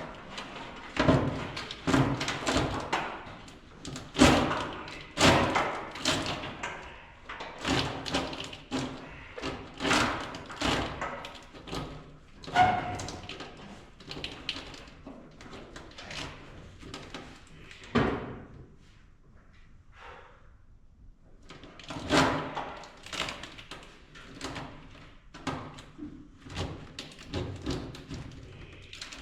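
Irregular knocks, clicks and clunks of hand work on the truck's wiring and engine bay, a few a second. About two-thirds of the way through there is a short quieter pause, then they start again.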